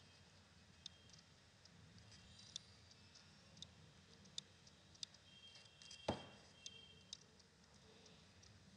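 Faint, scattered computer mouse clicks, about eight of them at irregular intervals over a low room hum. The loudest, about six seconds in, comes with a dull knock.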